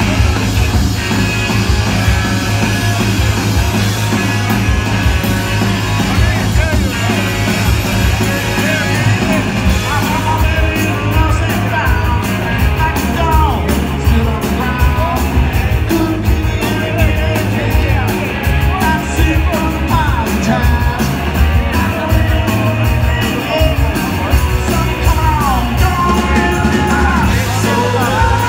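Rock band playing live and loud: electric guitar, bass and drum kit, with a voice singing over the band.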